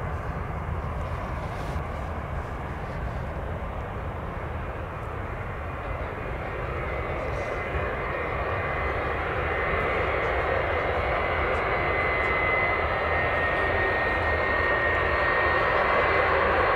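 Boeing 757's Rolls-Royce RB211 turbofans running at taxi power, a steady jet rumble. A thin high whine joins in and the sound grows louder over the second half as the aircraft turns toward the listener.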